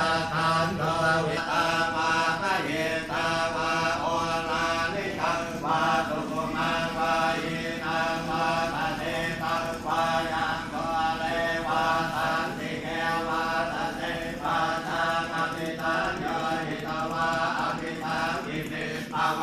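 Buddhist chanting: voices intoning in a steady, continuous rhythm of repeated phrases.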